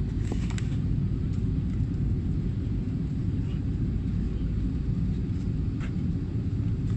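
Steady low rumble inside the cabin of an Airbus A330-300 parked at the gate, with a few faint clicks.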